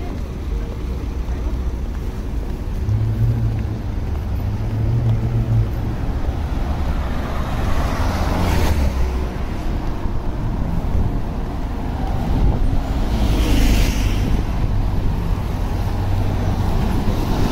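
City street traffic: a steady low engine rumble, with vehicles driving past close by. Passing cars swell and fade, once about halfway through and again a few seconds later.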